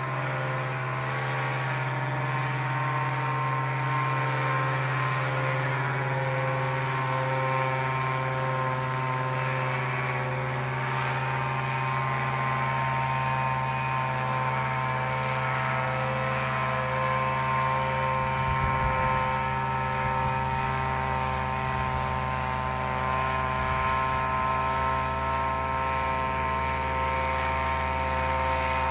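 Vittorazi EOS 150 paramotor, a single-cylinder two-stroke engine with its propeller, running steadily in flight, heard from the ground as it passes overhead at an even pitch.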